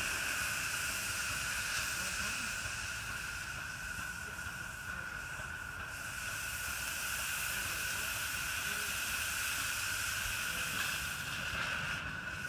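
A 7¼-inch gauge Tinkerbell-class live steam locomotive venting steam with a steady, even hiss.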